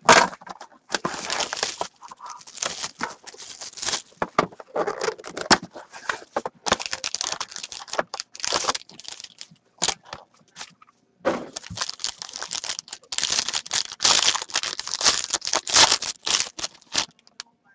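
Plastic shrink-wrap and foil wrapping of a trading-card box and pack being torn open and crumpled by hand: irregular crinkling and crackling rustles, with a short lull about ten seconds in.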